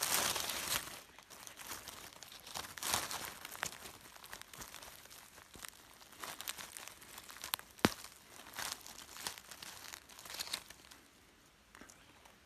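Dry leaf litter rustling and crackling as a hand digs through it and pulls up clumps of a plant, in short irregular bursts, with one sharp click about eight seconds in.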